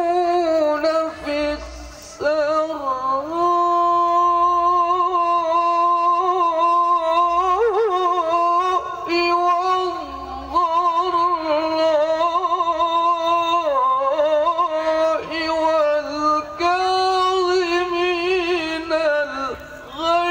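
A male reciter chanting the Qur'an in the melodic style, holding long notes with wavering ornamental turns and taking short breaks for breath between phrases, amplified through a handheld microphone.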